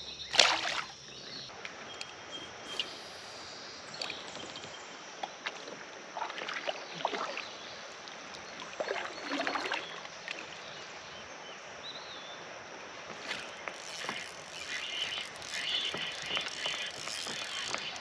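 A sudden splash-like burst just after the start as a smallmouth bass is dropped back into the creek, then water movement around a plastic kayak with scattered small knocks and handling sounds from the hull and fishing gear.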